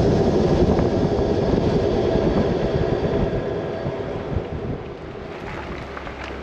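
A motor vehicle running: a steady engine and road rumble, loudest at first and easing off gradually.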